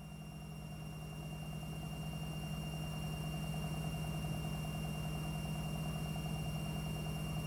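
Midea front-loading washing machine running: a steady motor hum with a thin high whine, swelling over the first couple of seconds and then holding level.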